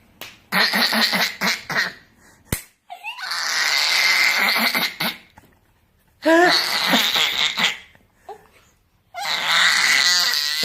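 A baby making strange breathy, squealing vocal noises in four bursts of one to two seconds each, possibly her version of laughing. Laughter runs through them.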